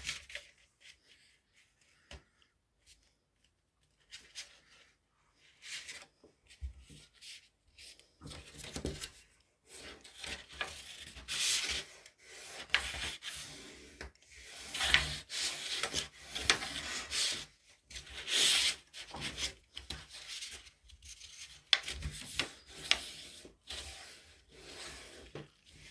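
Colored paper rustling as hands fold a long strip in half lengthwise and slide along it to press the crease, in irregular swishes and rubs. The first few seconds are nearly quiet.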